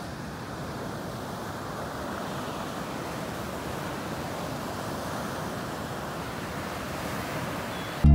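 Ocean surf breaking and washing up on a beach: a steady rushing wash of waves.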